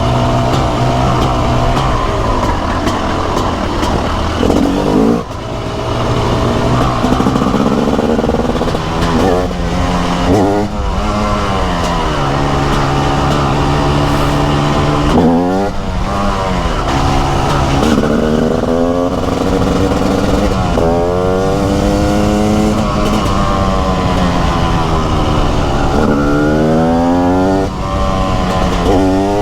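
TM SMR 300 two-stroke motorcycle engine pulling hard through the gears. Its pitch climbs steeply several times and drops back at each gear change or when the throttle closes, over a steady rush of wind noise.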